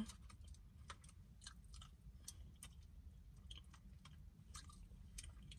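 Faint, irregular chewing and small mouth clicks from someone eating a mouthful of soft food, mashed potatoes with gravy.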